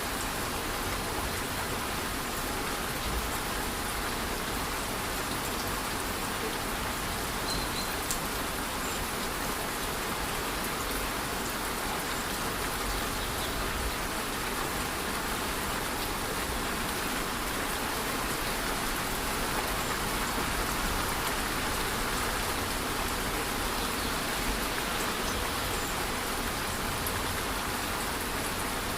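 Steady rush of a rainforest waterfall mixed with light rain falling on the surroundings, an even, unbroken wash of water noise.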